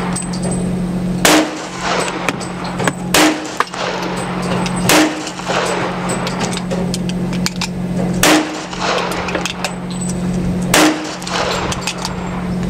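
Five 12-gauge shotgun blasts of 00 buckshot, each a sharp crack with a short echo trailing off, fired every two to three seconds over a steady low hum.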